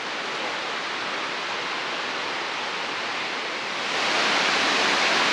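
Rushing water of the Crabtree Falls cascades, a steady noise that grows louder about four seconds in.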